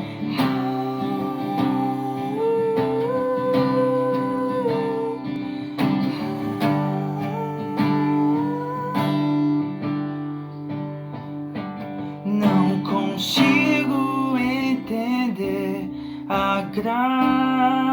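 Acoustic guitar playing the instrumental introduction of a worship song, with a line of held melody notes stepping up and down above the chords.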